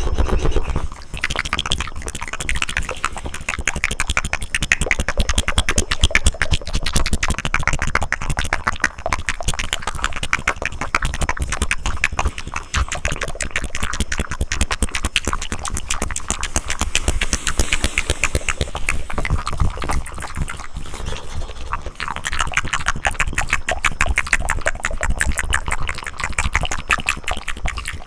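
Close-miked ASMR mouth sounds: a fast, continuous run of wet tongue clicks and tongue fluttering.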